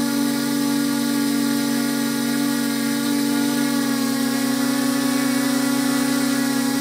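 Multirotor drone's electric motors and propellers whining steadily, heard from on board the drone; the pitch shifts slightly and the sound turns a little fluttery about four seconds in.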